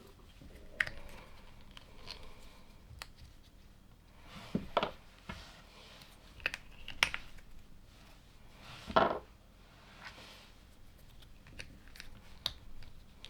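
LEGO plastic pieces clicking and knocking as they are handled and pressed together: a scatter of separate clicks, with the loudest knock about nine seconds in.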